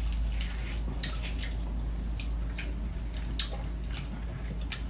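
Pomelo segments being peeled apart and eaten by hand: a handful of small, scattered clicks over a low steady hum.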